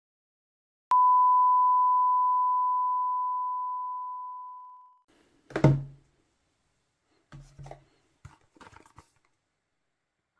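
A single pure electronic beep tone that starts abruptly about a second in and slowly fades away over about four seconds. It is followed by one thump and a few lighter knocks and rustles as the cardboard earbuds box is picked up and handled.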